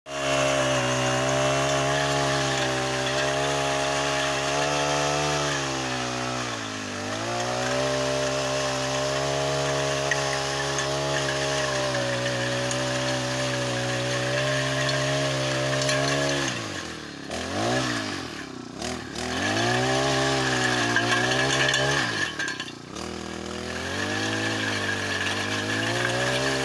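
Backpack brush cutter's small engine running at high revs, driving a tiller attachment that churns dry soil. The revs sag briefly about a quarter of the way through, then twice in the last ten seconds drop away sharply and climb back.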